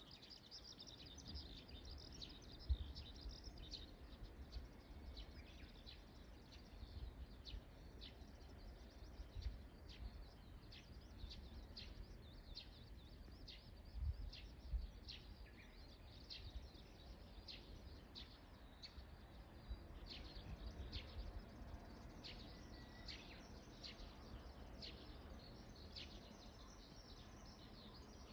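Small birds chirping: short, high chirps repeated about once a second, faint, over a low rumble.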